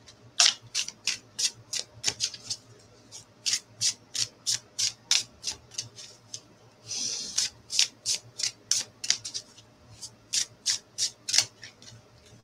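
A deck of oracle cards being shuffled by hand: an irregular run of light clicks and slaps, a few a second, with a brief rustle about seven seconds in.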